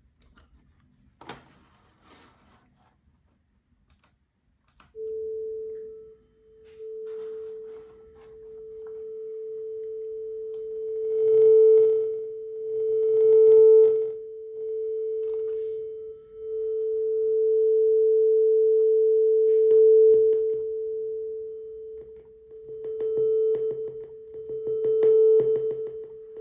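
A steady sine test tone, pitched a little under 500 Hz, played through a Topping D10 Balanced DAC, starting about five seconds in after a few faint clicks. Its loudness steps up and down as the hardware volume is changed, and each change is marked by rapid clicks and crackles, likely because the DAC applies each volume step instantly instead of ramping it.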